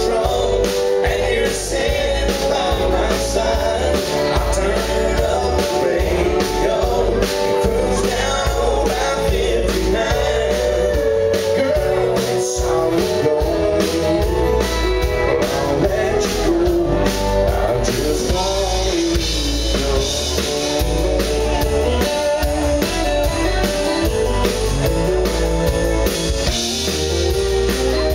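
Live country band playing: a male singer with acoustic guitar, electric guitar and drums, heard loud from within the crowd.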